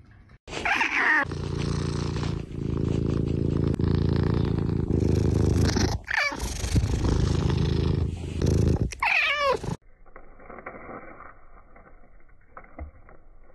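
Tabby kitten purring loudly close to the microphone, with a short meow about a second in, another about six seconds in and a third near nine seconds. The purring cuts off suddenly after about ten seconds, leaving quiet room sound.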